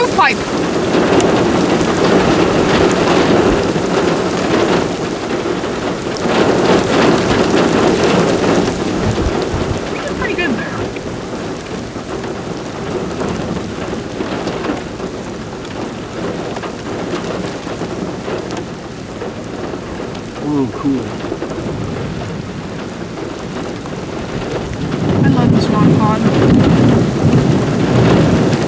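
Heavy thunderstorm rain with thunder rumbling. The noise swells louder near the start, again about a third of the way in, and once more near the end.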